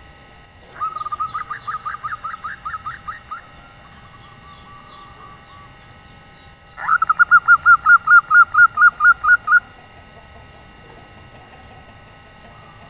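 Female zebra dove (perkutut) of the local 'nyelir' call type giving two bursts of fast, evenly repeated cooing notes, the second louder. This is the hen's call that draws males to answer.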